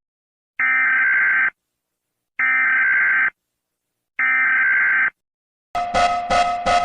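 Three EAS SAME header data bursts: harsh digital screeches about a second long, separated by short silences. Near the end a loud pulsing alarm tone begins, about three pulses a second.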